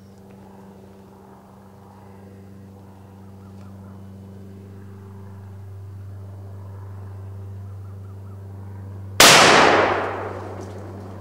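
A single close gunshot from a Thompson Center gun about nine seconds in, loud enough to hurt the ears, its report fading away over about a second. A steady low hum runs underneath.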